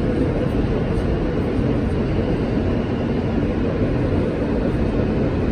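Steady rumble of a New York City subway car running through a tunnel, heard from inside the car.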